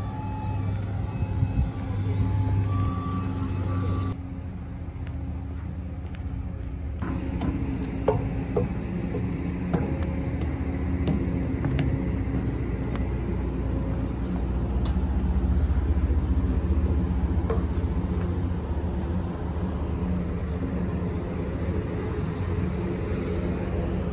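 Ferry port and on-board ambience: a steady low engine rumble with scattered knocks and clicks. The background changes abruptly about four and seven seconds in.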